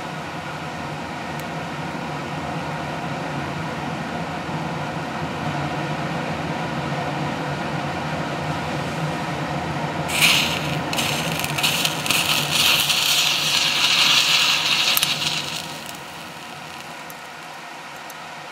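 Burning magnesium turnings in a crucible with a steady hiss. About ten seconds in, water dropped onto the white-hot metal sets off a loud, crackling sizzle that lasts about five seconds: the violent reaction of burning magnesium with water.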